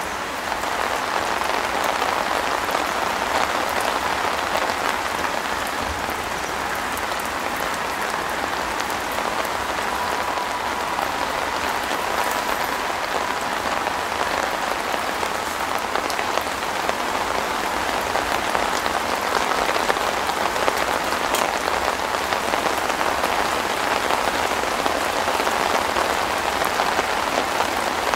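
Steady rain falling on a tent shelter's fabric roof, an even hiss with scattered individual drops.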